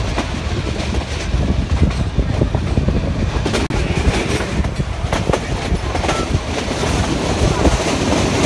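Ooty toy train of the Nilgiri Mountain Railway running, heard from aboard: a steady rumble of wheels on the track, with short clacks over the rail joints now and then.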